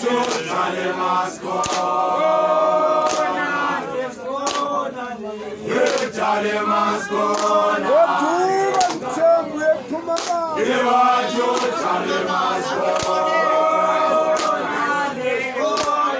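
A crowd singing a chant together, many voices holding long notes in unison with shifts in pitch between phrases, while hands clap along.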